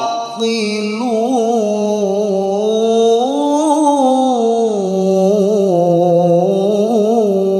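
A man's solo Qur'an recitation in the melodic mujawwad style through a microphone: one long, unbroken melismatic phrase with quick ornamental turns. It climbs in pitch around the middle, then settles onto a lower held note near the end.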